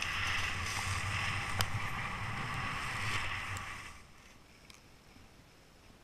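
Skiboards sliding and carving over snow: a steady hiss with a low rumble underneath, which drops off sharply to a faint hiss about four seconds in.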